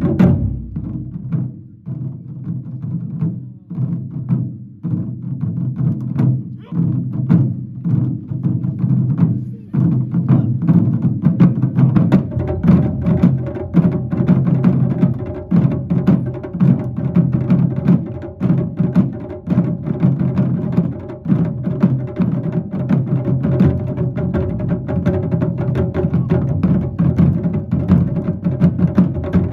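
Ensemble of Japanese taiko drums struck with bachi sticks. A loud stroke opens, followed by sparser, quieter strikes; about twelve seconds in it builds into dense, continuous drumming.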